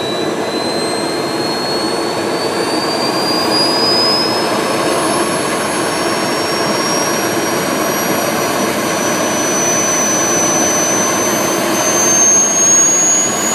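Model gas turbine spooling up in the fuel-ramp stage of its start: a loud rushing roar with a high whine that rises steadily in pitch, the turbine climbing through about 37,000 rpm near the end.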